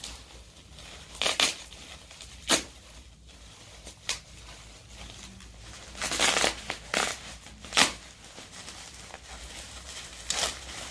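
Bubble wrap being pulled apart and unwrapped by hand, crinkling and rustling in a string of short, irregular bursts.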